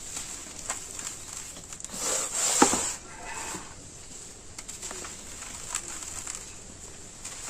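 Dry roasted dirt crumbled by hand, making gritty crunching and crackling, with a louder burst of crunching about two seconds in.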